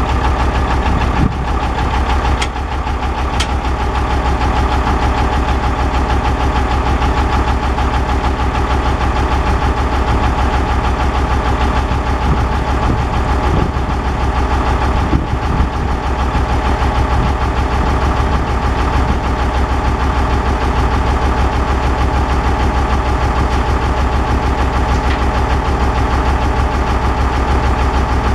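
Case 1070 tractor's six-cylinder diesel engine running steadily at idle, with a couple of light clicks a few seconds in.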